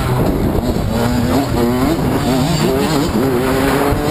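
Dirt bike engine revving hard under the rider, its pitch climbing and dropping repeatedly with throttle and gear changes while riding a motocross track.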